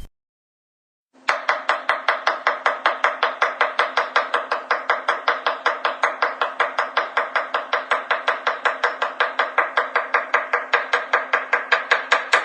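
A kitchen knife chopping rapidly on a cutting board, about five even strokes a second, starting about a second in and keeping up a steady rhythm.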